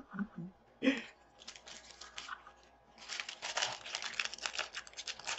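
Clear plastic retail bag crinkling as it is handled: a sharp crackle about a second in and a few faint crinkles, then dense, continuous crinkling from about three seconds in.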